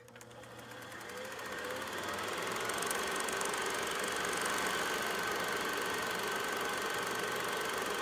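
Film projector running with a fast, even mechanical clatter and a low hum, fading in over the first couple of seconds; a faint high whine runs through it.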